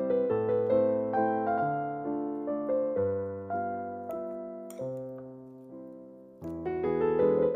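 Background piano music: a gentle melody of single notes and chords, each note ringing and decaying. It thins out and grows quieter a little after halfway, then picks up again with fresh notes near the end.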